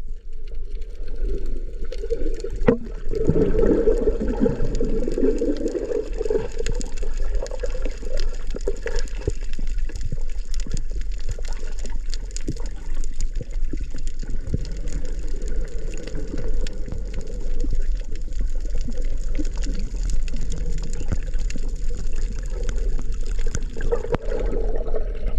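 Water heard through an underwater camera during a freedive: a steady, muffled rush of water with many small sharp clicks throughout, swelling louder a few seconds in.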